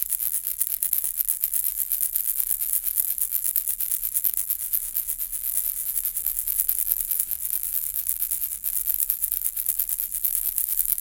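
Baby's rattle toy shaken continuously: a fast, dense, high-pitched rattle of small beads inside, with no pauses.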